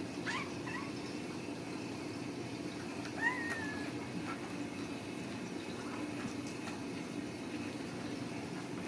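Ragdoll kitten mewing twice: a short, high mew about a third of a second in, then a longer mew about three seconds in that rises and falls.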